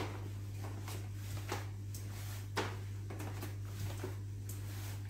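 Bare feet stepping up onto and down off a folding plastic step stool on a hard floor: soft knocks about once a second, over a steady low hum.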